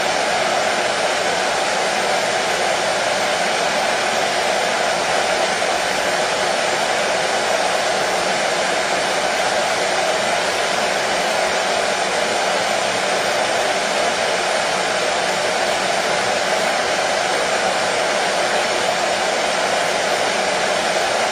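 Hair dryer running steadily, a constant airy whoosh with a faint motor hum and no change in pitch or level.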